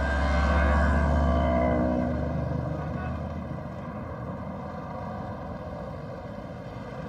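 Street traffic: a heavy motor vehicle's engine is loud in the first two seconds as it passes close, then fades under a steady wash of engine and road noise from other traffic.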